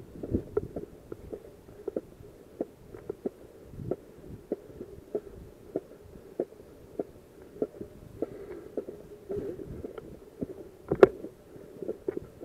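Footsteps of a person walking at a steady pace over dry, stony ground, about two steps a second. One sharper click about eleven seconds in.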